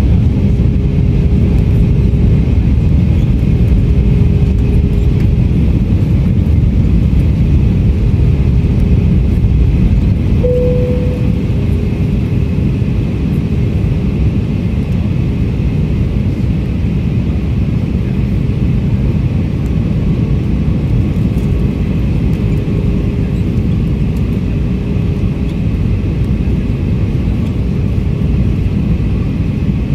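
Airliner cabin noise on descent: the steady rumble of an Airbus A319's IAE V2524-A5 turbofans and rushing air, heard from a window seat. A faint steady hum runs underneath, a brief tone sounds about ten seconds in, and the overall level eases slightly around then.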